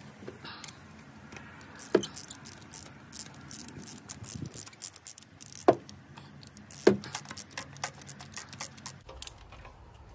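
Metal clicks and rattles of a socket wrench on an extension unscrewing a spark plug, with three louder clanks of the tool.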